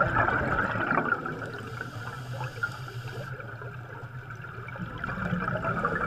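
Underwater bubbling: a steady stream of bubbles gurgling, heard as a continuous watery hiss over a low rumble.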